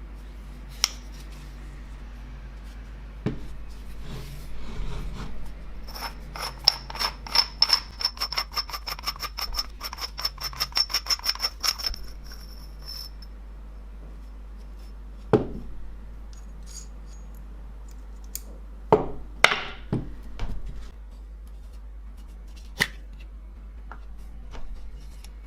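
Metal parts being handled: a run of rapid metallic clicks, about four or five a second for some six seconds, with a faint high ringing, then a few separate knocks and taps.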